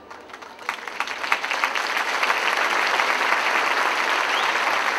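Audience applauding: a few scattered claps at first, swelling within about a second and a half into steady, loud applause.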